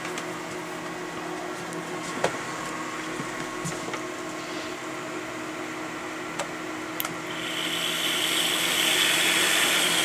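Steady background hum, then a click about seven seconds in as the power cable goes into the nCube MediaCube 4 server, whose power-supply fans spin up over about two seconds into a loud steady whoosh. Only the power supplies are running; the server itself is still switched off.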